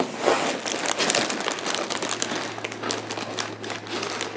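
Cardboard LEGO box being opened and the clear plastic bags of bricks inside crinkling as they are handled: a continuous rustle with many small crackles.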